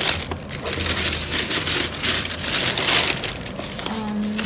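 Tissue paper rustling and crinkling as it is pulled open by hand, a dense stream of crackles that eases off near the end.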